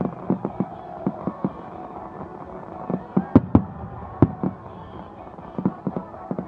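Aerial fireworks shells bursting in a rapid, irregular string of bangs, the loudest three a little past the middle, with music playing faintly underneath.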